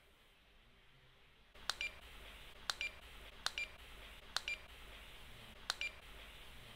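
Saveo Pocket Scan handheld barcode scanner beeping five times, roughly a second apart, as its trigger is pressed, each beep confirming a barcode read. Each short beep is followed at once by a softer second blip.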